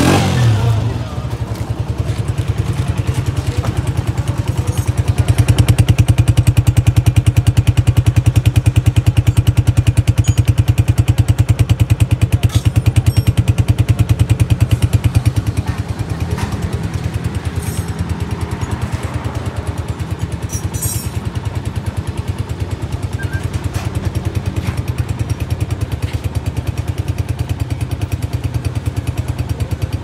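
Honda CG125's air-cooled single-cylinder four-stroke engine running in neutral, heard through its stock exhaust as a steady train of firing pulses. It grows louder about five seconds in and settles back to a steady idle about fifteen seconds in.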